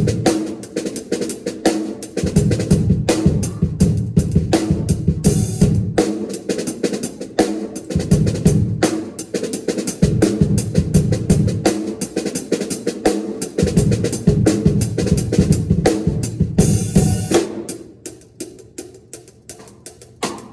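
Drum kit played in a fast, busy pattern with heavy low hits, turning much softer about three seconds before the end.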